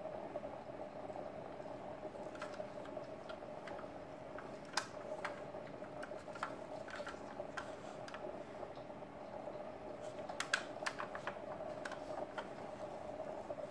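Small clicks and taps of a diecast model car being handled in nitrile-gloved hands, with a sharper click about five seconds in and a quick run of clicks around ten seconds in as the car is turned over. A steady hum runs underneath.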